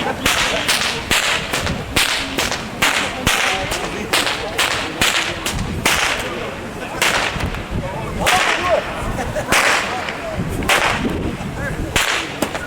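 Whips cracked again and again in a steady rhythm, about two to three sharp cracks a second.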